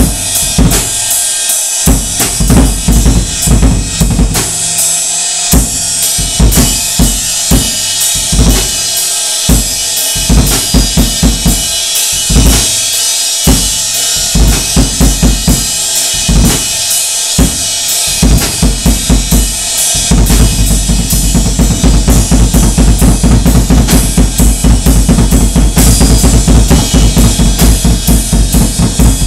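Drum kit played hard, its bass drum emptied of the stuffing inside, so each kick booms fully. Beats and fills with snare and cymbals give way about twenty seconds in to a fast, unbroken run of bass-drum strokes under a wash of cymbals.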